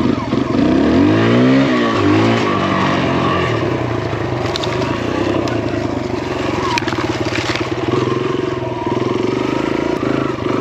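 Kawasaki KLX dirt bike's big-bore single-cylinder four-stroke engine being ridden: it revs up and back down early on, then runs steadily under throttle. A few sharp knocks come through the middle.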